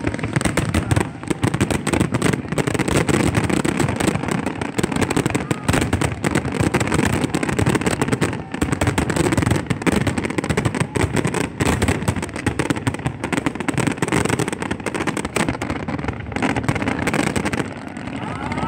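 Fireworks display: a dense, continuous barrage of bangs and crackles from aerial shells and ground fountains.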